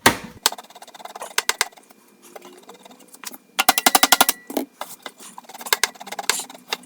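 A toolbox's metal hinge pin being twisted and pulled out of its hinge: scattered sharp metallic clicks, with a quick run of about ten clicks around the middle as the pin works free.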